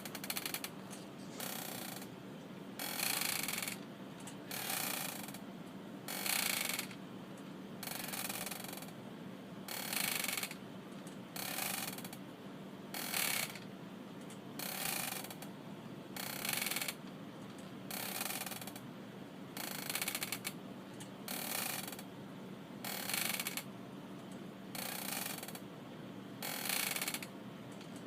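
Rocking chair creaking in a steady rocking rhythm: a louder creak about every second and a half alternates with a softer one, one for each swing back and forth. A faint steady low hum underneath.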